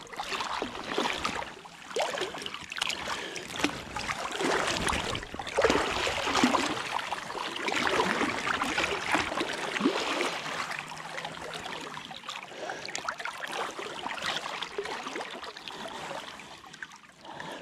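River water splashing and sloshing right at the microphone as a king salmon is held and moved in the shallow current, a busy irregular wash of small splashes that eases off near the end.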